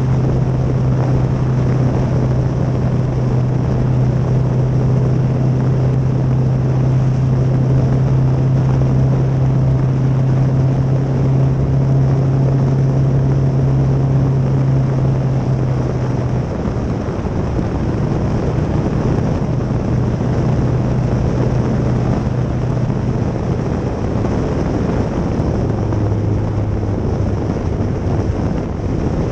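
Kawasaki Z650 motorcycle engine running at a steady cruise, with wind rushing past the microphone. The engine note shifts a little over halfway through and drops lower near the end.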